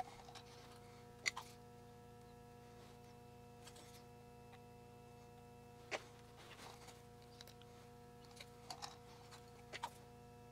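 Quiet workbench handling: a few short clicks and taps as a small circuit board and its parts are handled in a bench vise, the sharpest about a second in and about six seconds in, with several lighter ones near the end, over a faint steady hum.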